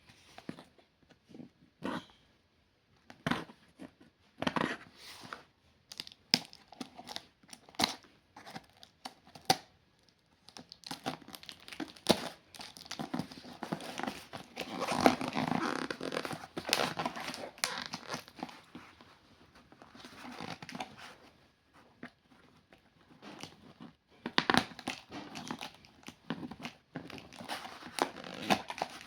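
Delivery packaging being torn open and crumpled by hand. Scattered clicks and handling knocks, then about ten seconds in a long stretch of steady tearing and crinkling, with more near the end.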